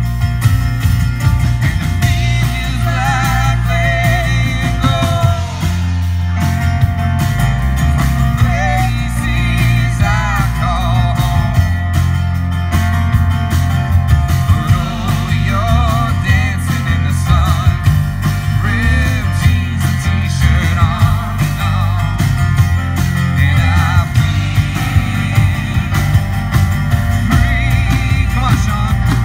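Live rock band amplified through PA speakers: acoustic guitar, keyboard and drums playing steadily, with a woman's lead vocal wavering over the top.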